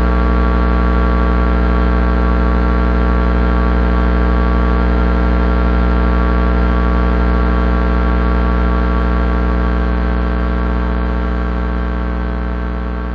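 Electrical transformer hum: a steady, loud low drone with many overtones stacked above it, starting to fade out near the end.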